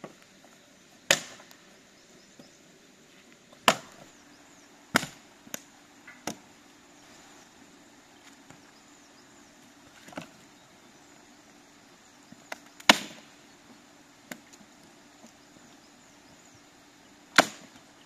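Dead branches being snapped for a campfire: ten or so sharp woody cracks at uneven gaps, the loudest about a second in, near four and five seconds, near thirteen seconds and near the end.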